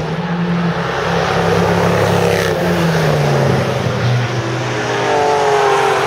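Mercedes C 63 AMG estate's V8 engine running past on the track, a low drone that sinks slowly in pitch. About five seconds in, another car's engine comes in, rising in pitch.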